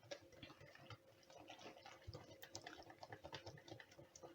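Faint, irregular clicking and tapping of a spatula stirring a thickening cream filling in a bowl, over a faint steady hum.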